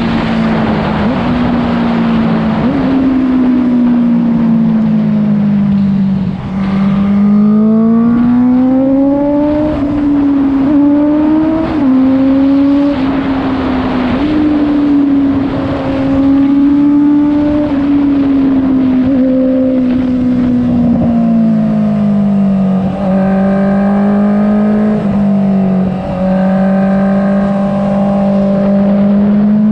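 Honda CBR650F's inline-four engine running through an Akrapovic full-system exhaust with the dB killer removed, loud and unbaffled. Its note rises and falls in pitch as the throttle is opened and eased, with a few brief drops in level.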